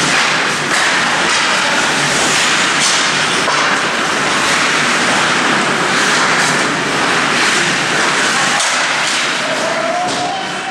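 Ice hockey game heard from the stands: a steady crowd din with scattered sharp clicks of sticks and puck, and a brief rising call near the end.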